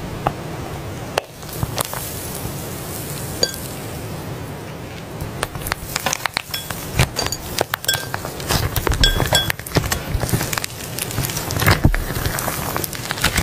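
Irregular clicks and clinks of hard objects being handled. They come more often in the second half, and a few ring briefly, like glass or metal being tapped.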